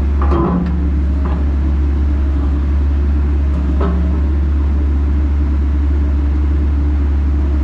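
Heavy diesel engine idling with a steady low drone, with a few short knocks about half a second, one second and nearly four seconds in.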